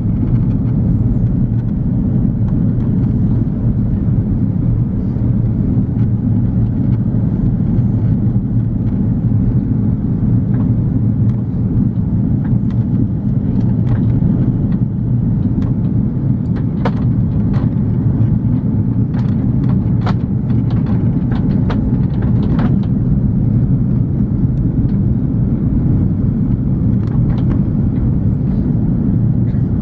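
Steady cabin rumble inside an Airbus A340-300 in flight, the drone of its four CFM56 engines and the airflow around the fuselage, with scattered light clicks and rattles through the middle.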